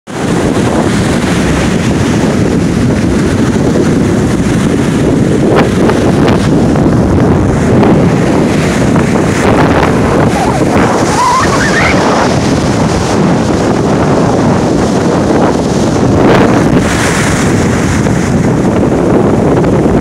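Atlantic surf breaking and washing in close by, under strong gusty wind buffeting the phone's microphone in a steady loud rush.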